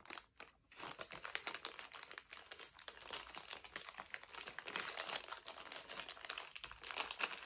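Small clear plastic parts bag crinkling as it is handled, a dense run of small crackles starting about a second in.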